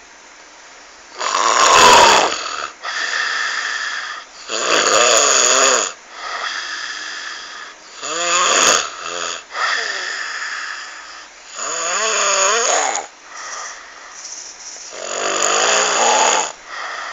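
A sleeper snoring loudly: about five long, rasping snores with a wavering pitch, roughly every three and a half seconds, with softer breathing sounds between them.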